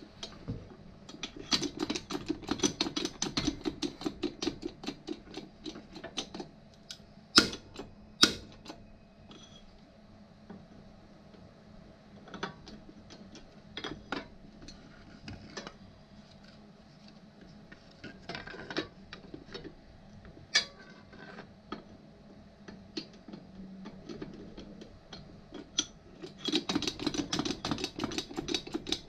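Fast runs of mechanical clicking in spells, with two sharp knocks about seven and eight seconds in and scattered single clicks between, as 3D-printed parts are forced together.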